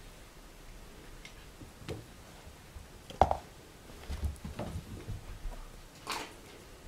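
A small ball dropped by a miniature schnauzer knocks into a jam jar about three seconds in, a sharp knock with a short ring. Soft thumps and scuffs of the dog moving on the carpet follow, and there is another sharp click near the end.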